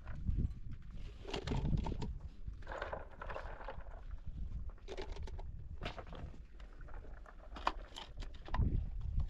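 Hands working in a plastic basin of water and handling a plastic bottle of dried kashk, with irregular splashing, rustling and a few soft knocks, the last near the end as the basin is lifted.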